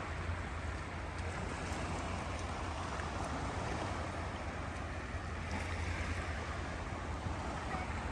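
Sea surf: a steady wash of waves with a constant low rumble underneath.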